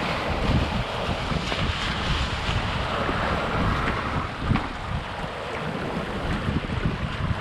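Wind buffeting the microphone over the rush of water along a sailing dinghy's hull, under way in a strong breeze.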